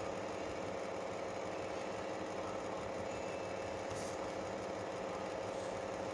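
Steady background machine hum with a constant tone, unchanging throughout, and one short faint click about four seconds in.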